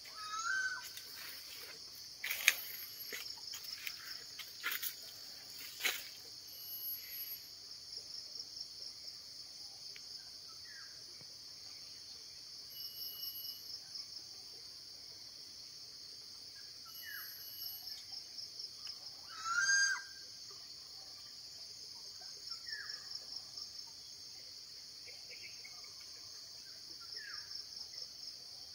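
Forest insect chorus: a continuous high, even buzzing, with short, higher pulsed trills that come and go every few seconds. A few sharp clicks sound in the first seconds, and brief bird-like chirps come now and then, the loudest a little before the last third.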